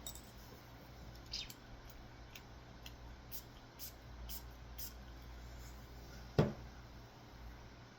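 A run of about eight short, high hisses over the first five seconds, then a single thump about six and a half seconds in, the loudest sound.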